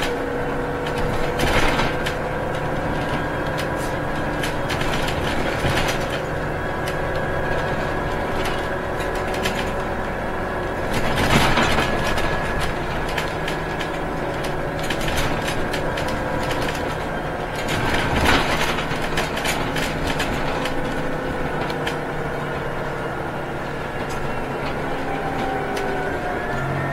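Inside a Scania Citywide natural-gas (CNG) city bus under way: the engine and drivetrain hum in steady tones that slowly rise and fall with speed, over road and tyre noise. A few knocks and rattles come through, the loudest about 11 and 18 seconds in.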